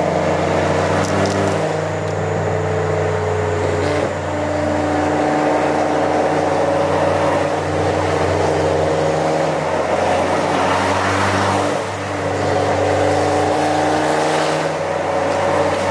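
Car engine droning steadily at cruising speed with tyre and road noise, heard from inside the cabin. Its pitch drifts slowly up and down, and the sound dips briefly about four and twelve seconds in.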